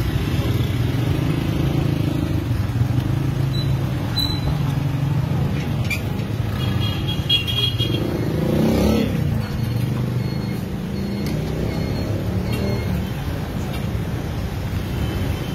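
Street traffic: vehicle engines running steadily, with one vehicle passing about eight to nine seconds in.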